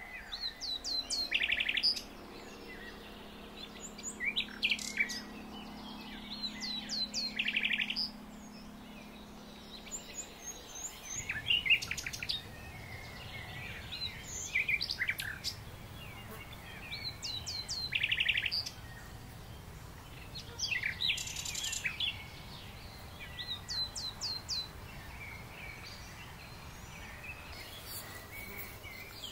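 Songbirds singing: repeated phrases of quick falling whistle notes and short fast trills, coming every few seconds.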